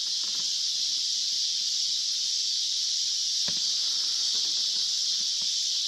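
Steady, unbroken chorus of insects chirring, a high even drone.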